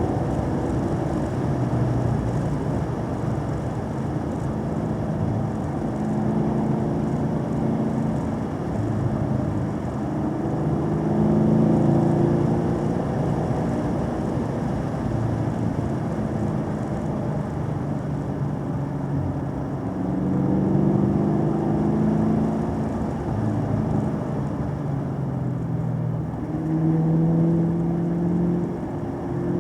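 A car engine working under changing throttle, its note rising and falling over a steady hiss of road and wind noise. It swells louder three times, about a third of the way in, past the middle and near the end.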